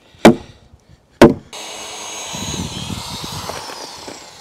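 Two hammer blows on a wooden sill beam, about a second apart, then a corded power tool starts and runs steadily against the timber.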